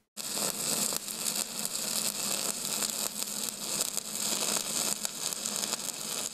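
A steady hiss-like noise with a low hum under it and a faint crackle, starting suddenly just after a brief silence.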